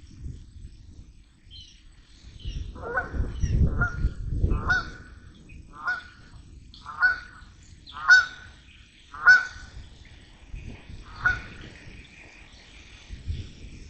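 A bird honking over and over, about nine short calls roughly a second apart, with a low rumble in the first few calls.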